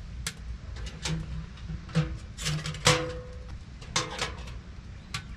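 Sharp metal clicks and clanks from a Winnerwell stainless-steel camp stove as its door is shut and latched and the front draft vent is worked. There are about eight knocks over a few seconds, and a couple of them ring briefly.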